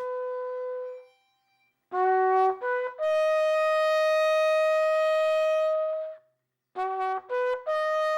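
Solo trumpet playing a tune. A held note dies away about a second in; after a short gap come three quick notes and a long held note, and about two-thirds of the way through, a run of short clipped notes.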